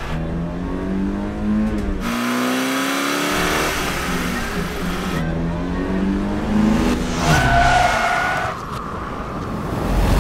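Car engine accelerating hard from inside the cabin, its note climbing in pitch, dropping at a gear change about two seconds in, then climbing again. About seven seconds in, a steady high tone sounds for about a second and a half, and right at the end a sudden loud crash begins.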